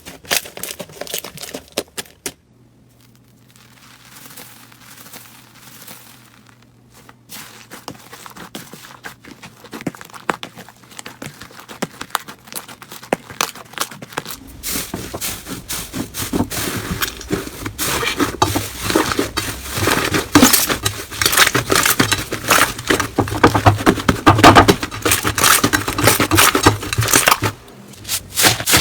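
Slime being squeezed and pressed by hand, with rapid crackling and popping clicks. The crackling is sparse and soft at first and grows dense and loud from about halfway.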